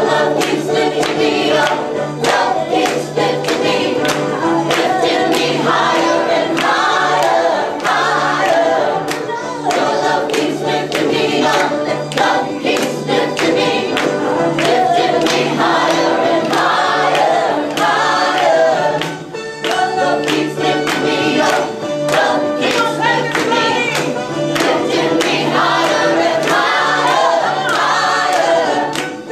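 A group of people singing together with hand claps keeping a steady rhythm.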